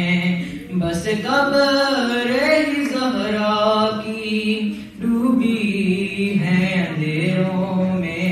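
A young male voice chanting an Urdu noha (mourning lament) into a microphone, in long drawn-out melodic phrases broken by short pauses for breath.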